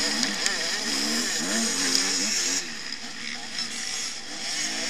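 Motocross bike engines revving, their pitch rising and falling again and again as the riders work the throttle in a pack, heard from a bike-mounted camera with a loud rush of wind and noise that eases about two and a half seconds in.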